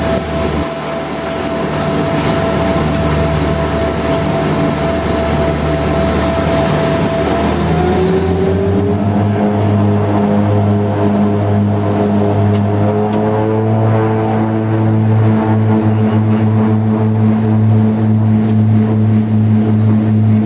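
Cabin noise of a BAe Jetstream 31's Garrett TPE331 turboprop engines, heard from a seat beside the left engine: a steady whine and drone, then about eight seconds in the pitch glides upward and a deep, steady propeller drone takes over as engine power rises.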